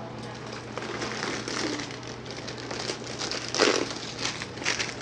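Snack packaging crinkling as it is handled, in irregular rustles with the loudest crackle a little past halfway through.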